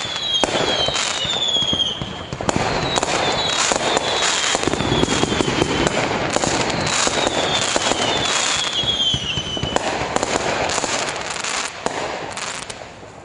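Fireworks going off: a dense, continuous crackling of small bangs with several high whistles that fall in pitch, dying away near the end.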